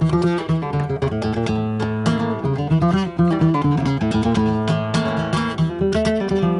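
Nylon-string acoustic guitar played solo, a quick stream of plucked notes and chords.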